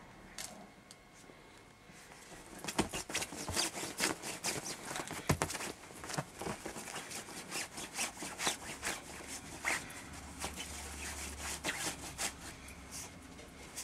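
Rustling and scratching in fleece dog bedding and a duvet, with many irregular small clicks, starting about two and a half seconds in and thinning out near the end.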